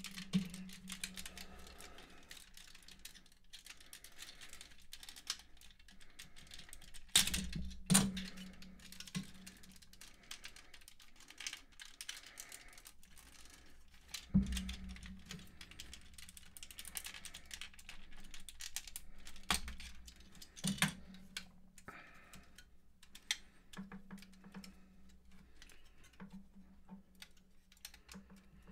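Small plastic clicks and rattles as parts of a Fans Project Protector upgrade kit are unclipped from a Transformers Rodimus Prime toy, with a few louder knocks as pieces are set down on the table.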